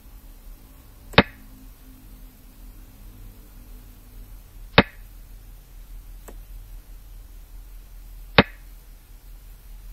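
Three sharp clacks about three and a half seconds apart, with a much fainter tick between the second and third, over a faint low hum: the move sound of a Chinese chess (xiangqi) replay program, a piece being set down on the board at each move.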